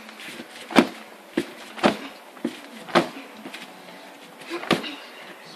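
Fists punching a padded strike shield, a run of sharp slaps roughly every half second, with a slightly longer gap near the end.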